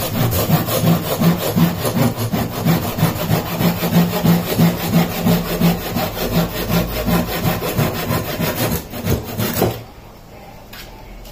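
Hand saw cutting across a wooden batten held in a vise, in quick even back-and-forth strokes. The sawing stops suddenly just under ten seconds in as the piece is cut through.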